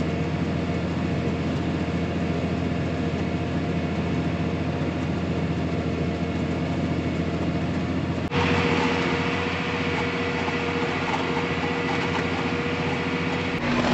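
John Deere 8110 tractor engine running steadily under load inside the cab while pulling a planter, a continuous hum with steady low tones. About eight seconds in the sound changes abruptly to a brighter, noisier cab drone with a steady whine.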